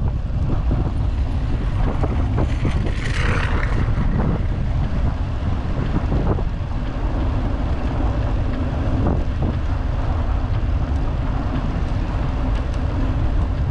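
Wind rushing over a handlebar-mounted GoPro's microphone as a vintage road bicycle rides along: a steady low rumble with a few brief knocks from the bike.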